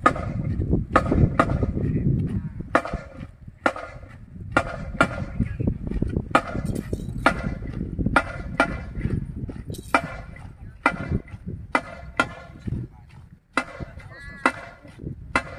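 Irregular sharp percussion strikes from a marching drum band, about one or two a second, some with a brief ringing tone, over a low rumble of strong wind on the microphone.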